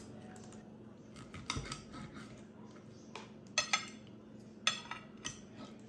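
Steel knife and fork cutting lamb chops on a ceramic plate: several sharp clinks and short scrapes of metal on the plate at irregular intervals.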